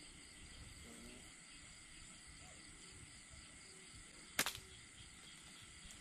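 Faint, steady chirring of night insects, with a single sharp snap about four and a half seconds in.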